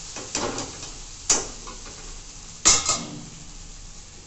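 Steel utensils clanking against a metal kadhai as flattened rice is tipped in from a strainer and stirred: three knocks, the last the loudest.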